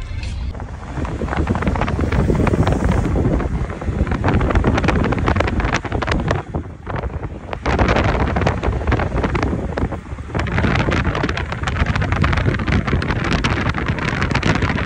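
Wind buffeting a phone's microphone from a moving car, over road noise, easing briefly a couple of times.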